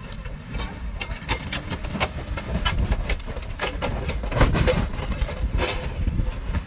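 A Kramer telehandler's diesel engine running under load as it lifts and tips a car, with many sharp clanks and scrapes of the car's body being forced up.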